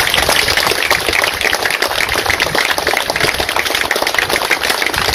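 Large crowd applauding: a dense, steady clatter of many hands clapping that starts just before and fades out near the end.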